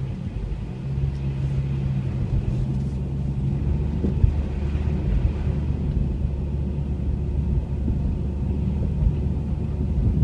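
Car engine and road noise heard from inside the cabin while driving on snowy roads: a steady low hum that drops to a lower note about four seconds in, with a single bump near that point.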